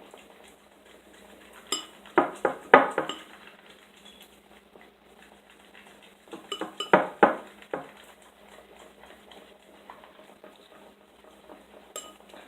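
A utensil stirring a thick mix of shampoo and liquid soap in a container, clinking and scraping against its side in two short bursts, about two seconds in and again about six and a half seconds in.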